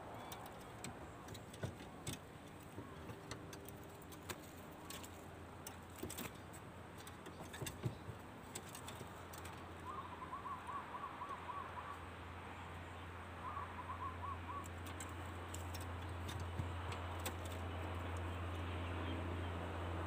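Spotted dove cooing, a low hooting call, with a small bird's quick trill twice in the middle. A low steady hum builds up through the second half.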